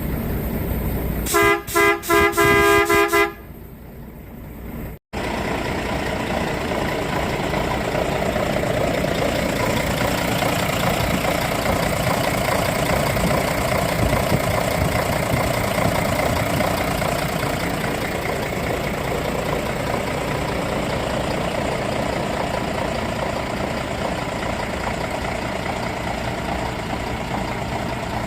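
Truck horn sounding in a few short toots, the loudest thing here. Then, after a sudden break, a diesel truck engine running steadily.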